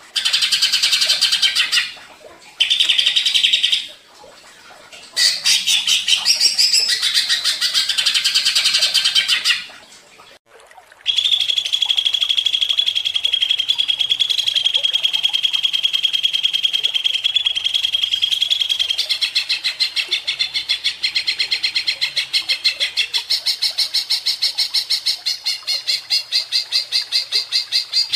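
Greater green leafbird (cucak ijo) singing: bursts of fast chattering song broken by short pauses. About eleven seconds in it launches into a long unbroken rapid trill, the fast repeated 'ngentrok' delivery of a bird in full song.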